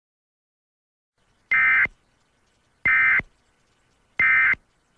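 EAS SAME end-of-message (EOM) data bursts: three short, identical, warbling digital data tones, each about a third of a second long, about 1.3 seconds apart. They signal the end of the emergency alert.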